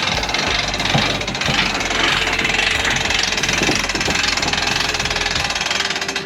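Outboard motor on a small aluminium boat running steadily, a continuous engine drone.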